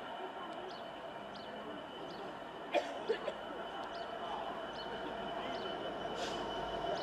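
A GBRf Class 66 diesel locomotive approaching, its two-stroke V12 engine and the rails giving a steady hum that slowly grows louder. Birds chirp over it, and there are two sharp clicks about three seconds in.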